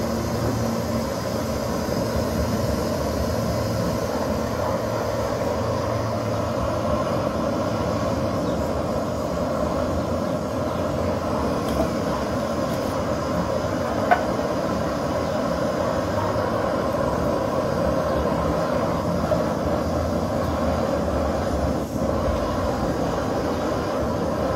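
MSR Pocket Rocket canister stove burning steadily under a pot of water, a constant hiss. A single sharp clink about halfway through.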